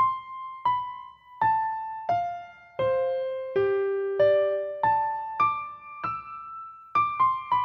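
Background music: a slow melody of single piano notes, one about every two-thirds of a second, each ringing and fading out, the notes coming quicker near the end.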